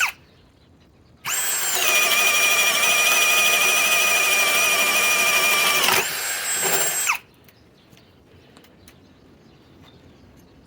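Ryobi PBLHM101 cordless hammer drill on its low speed setting, driving a 1 3/8-inch spade bit. A steady high-pitched motor whine runs for about five seconds under load. It then gets quieter and rises in pitch for about a second before stopping.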